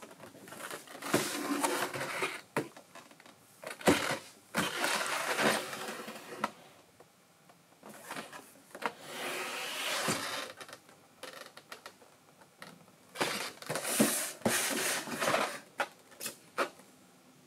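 Large cardboard retail box being handled and turned over, with bouts of rubbing and scraping against hands and the table and several sharp knocks.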